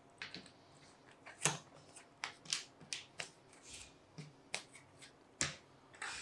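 Plastic keycaps being taken out of their packaging one by one: a string of light, irregular clicks and taps with faint rustling between them.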